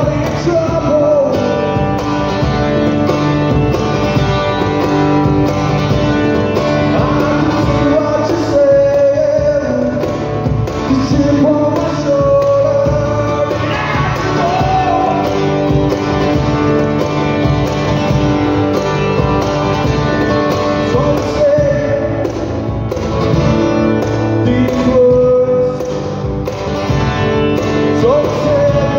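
Live acoustic music: a man singing lead over a strummed acoustic guitar, with a hand-played cajon keeping a steady beat.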